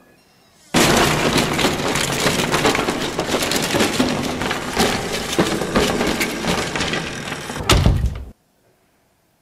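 A heap of wooden sticks or planks clattering down onto a pile: a dense, loud run of knocks and rattles starting about a second in, with a heavier crash near the end before it cuts off suddenly.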